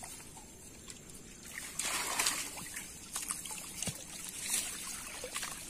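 Shallow river water splashing and sloshing as a hand net holding a caught rohu is moved about in it at the bank. The splashing starts about a second and a half in, is loudest soon after, and a few short splashes follow.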